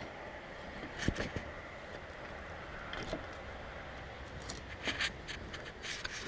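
Scattered light metal clicks, knocks and scrapes as a steel mower-deck wheel bracket is handled and held up against its mounting holes, with a small cluster of clinks near the end.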